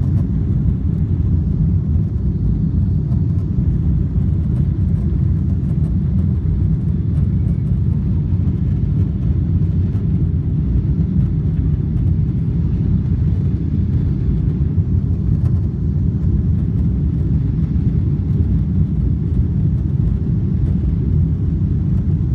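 Steady low rumble of a Boeing 777-300's jet engines at climb power and the airflow around the fuselage, heard from inside the passenger cabin during the climb after takeoff.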